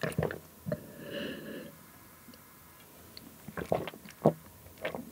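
A person drinking juice from a glass jar: swallowing sounds in the first two seconds, then a run of lip smacks and mouth clicks as he tastes it.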